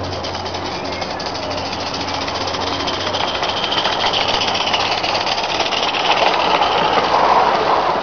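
Mamod SM32 live-steam garden railway locomotive running under steam, its rapid, even exhaust beat getting louder as it draws near.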